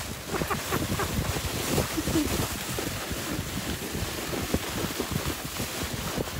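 Sledge sliding at speed over packed snow, a steady rough hiss and rumble of the runners with small bumps, and wind buffeting the microphone.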